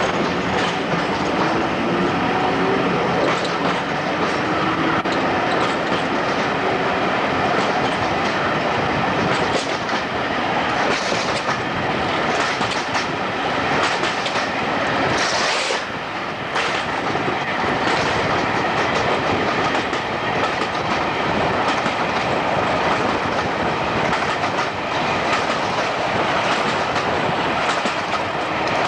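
Passenger train running along the track, wheels clicking over the rail joints. A faint rising whine in the first few seconds as it gathers speed, and a short louder rush about halfway through.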